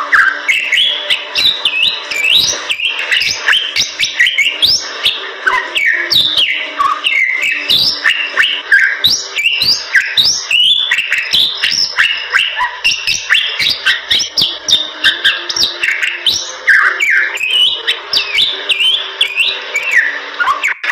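Bali myna singing continuously: a fast, unbroken run of chirps, rising and falling whistles and sharp clicks.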